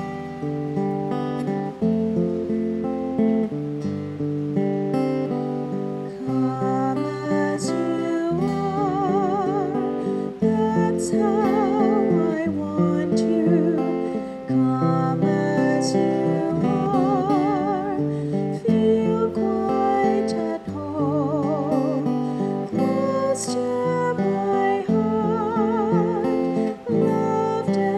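Slow piece of music on acoustic guitar, strummed and picked chords, with a melody line sung with vibrato coming in about eight seconds in.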